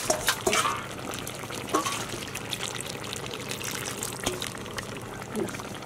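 Chicken gravy simmering in a clay pot as a ladle scoops it up and pours it back, a steady wet bubbling with a few small clicks.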